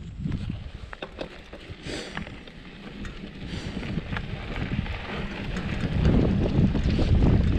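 Wind buffeting the microphone, growing louder over the last couple of seconds, with scattered knocks and rattles.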